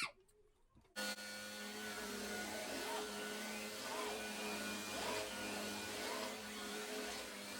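Vacuum cleaner switched on about a second in, then running steadily with a constant motor hum.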